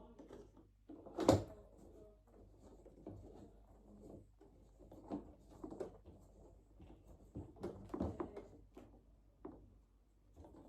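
Tripod and ring light parts being handled and fitted together: scattered knocks and clatters, the loudest about a second in.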